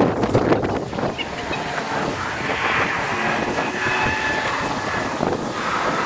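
Wind buffeting the microphone and tyre and road noise from a Ninebot electric scooter riding fast along a city street, the recording sped up. Rattles and bumps come in the first second, and a brighter hiss with a faint whine follows.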